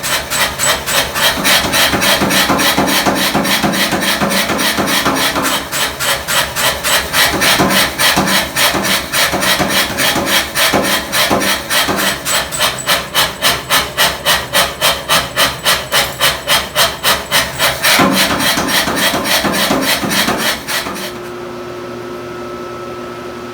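Rapid, evenly repeated strokes on the steel-and-nickel Damascus billet, about four a second, stopping suddenly about 21 seconds in. A steady fan-like hum is left after they stop.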